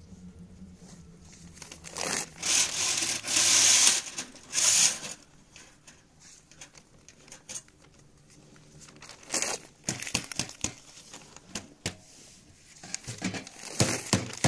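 Dry brushwood and paper rustling and crumpling in two loud bursts during the first five seconds, then a run of sharp snaps and crackles in the second half.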